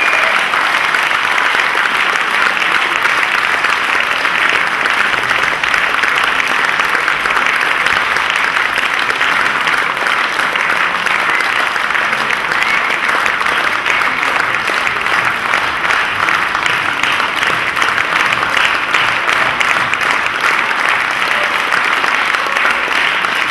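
Concert audience applauding, a long, steady round of clapping.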